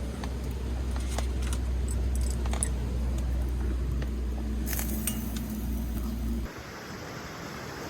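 Low, steady rumble of a vehicle with scattered light clicks and rattles. It cuts off abruptly about six and a half seconds in, and a steady rushing noise takes its place.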